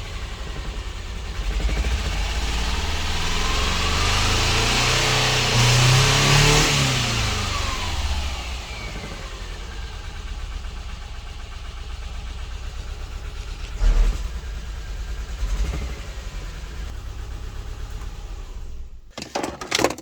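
Subaru Impreza's flat-four boxer engine running with misfires on cylinders 1 and 3. It is revved up and back down once in the first several seconds, then settles to idle. A single sharp thump comes about fourteen seconds in, and the sound cuts off just before the end.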